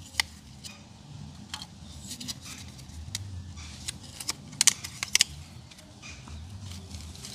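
Newly lit wood-chip fire crackling: irregular sharp snaps and pops, the loudest few clustered about four to five seconds in.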